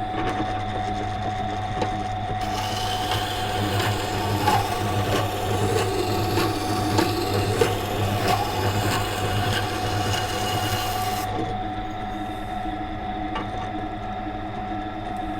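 Water grinder's motor running steadily with a hum; from about two seconds in until about eleven seconds in, the carbon-steel knife blade is held against the turning wet stone wheel, giving a rasping grinding scrape as the secondary bevel is ground.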